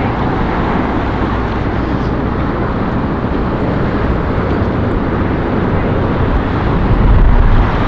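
Strong wind buffeting the microphone during a windstorm walk: a loud, steady rumbling rush, with a stronger gust about seven seconds in.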